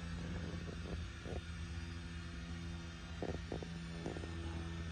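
A steady low hum with a few faint, short soft sounds over it.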